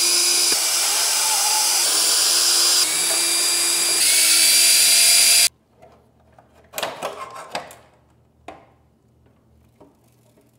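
Cordless DeWalt drill/driver spinning out Torx bolts, a steady whir whose pitch steps slightly a few times, cutting off about five and a half seconds in. After it, a few faint clicks and knocks as the carbon belly pan is handled.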